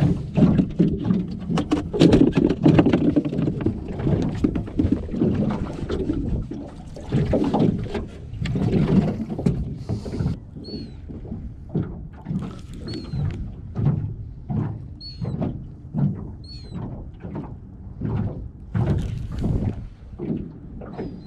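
Water slapping and sloshing against the hull of a small metal boat, with irregular knocks and bumps from movement in the boat. From about halfway, a bird's short falling call repeats every second or so.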